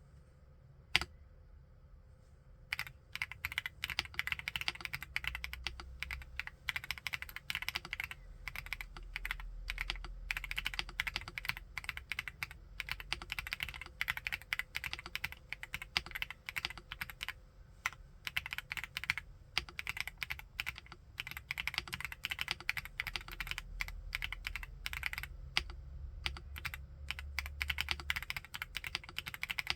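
Typing on a WEIKAV RO75 full-aluminium 75% mechanical keyboard with QSENN Mint switches. A single keystroke comes about a second in, then continuous fast typing starts at about three seconds.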